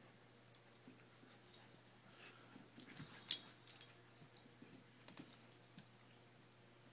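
Dog playing with a plush toy cat, shaking and mouthing it: light jingling and clicking throughout, loudest about three seconds in.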